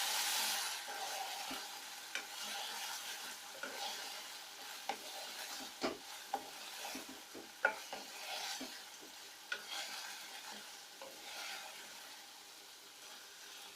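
Sauce-coated fried cauliflower sizzling in a frying pan while it is stirred, with a stirring utensil knocking and scraping against the pan every second or so. The sizzle gradually dies down toward the end.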